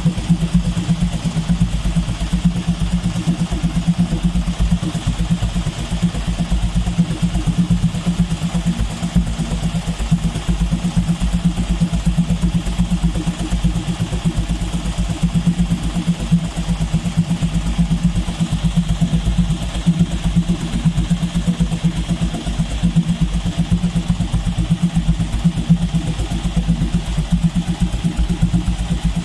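Heavy diesel engine of road construction machinery running steadily, a continuous low rumble with a fast, even pulse.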